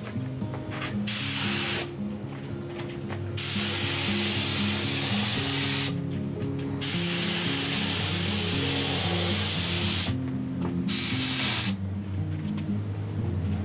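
Gravity-feed compressed-air spray gun hissing in four bursts as the trigger is pulled and released, the middle two bursts the longest, spraying top-coat paint. Background music plays throughout.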